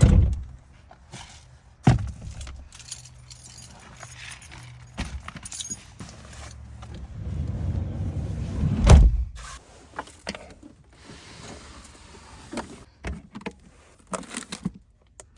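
Things being handled and moved around, with clicks, rattles and rustles, and two loud heavy thumps, one at the start and one around nine seconds in.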